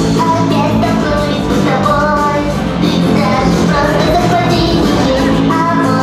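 Pop song with a sung female vocal line over a steady accompaniment, played back through a hall's stage speakers.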